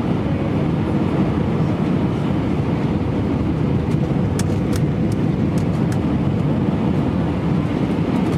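Airbus A319 cabin noise: the steady low rumble of the jet engines and airflow, with a few faint ticks or rattles about halfway through.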